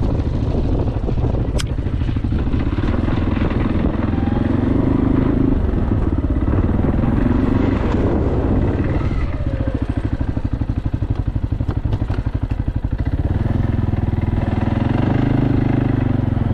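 ATV engine running, its speed rising and falling a few times, with a slower, plainly pulsing stretch around the middle.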